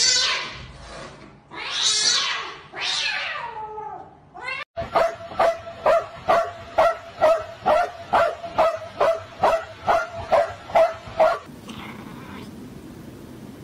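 A cat yowling: three long wails that rise and fall. Then, after a cut, a fast even run of about seventeen short sharp barks from a dog, nearly three a second, followed by a quiet stretch.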